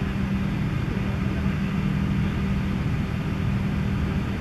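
Steady low engine hum, an unchanging drone over a rumble.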